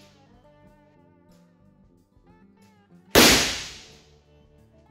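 One shot from a Colt Walker 1847 .44-calibre black-powder revolver loaded with a reduced 1.4 g powder charge, about three seconds in, its echo dying away over about a second. At the start, the echo of the previous shot is still fading.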